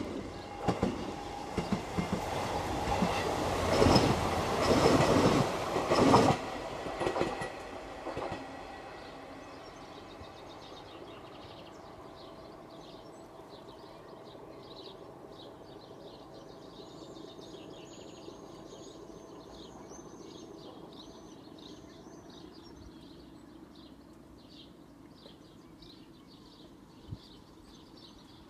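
Diesel locomotives 20142 (Class 20) and D8 running past with wheels clattering over the rail joints. The loud clatter dies away after about eight seconds into a faint, steady rumble as they move off.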